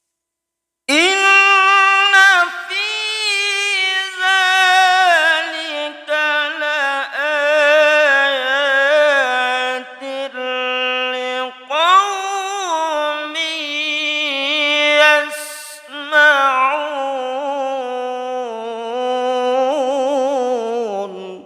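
A man reciting the Quran alone in an ornate, melodic tilawah style, drawing out long melismatic phrases in a high register with wavering, ornamented pitch and short breaths between them. The voice begins about a second in and fades out near the end.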